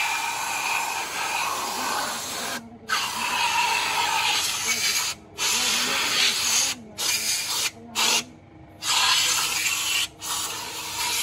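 Compressed-air solvent spray gun hissing as it blasts cleaning fluid over a bare engine block deck during a head gasket change. The hiss cuts off briefly about six times as the trigger is let go, the longest pause just past the middle.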